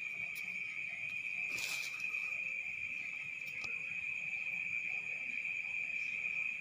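Crickets chirring in a steady, unbroken high-pitched drone, with a brief rustle a little under two seconds in.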